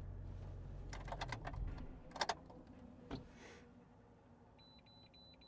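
A low rumble fades out about a second and a half in. Then come a few sharp clicks and rattles, with another click a second later. Near the end there is a quick run of short, high-pitched electronic beeps.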